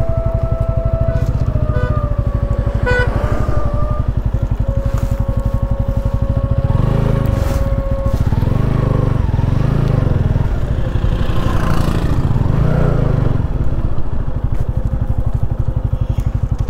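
Motorcycle engine running with a fast even firing beat and a steady whine over it, growing heavier in uneven swells for several seconds in the middle.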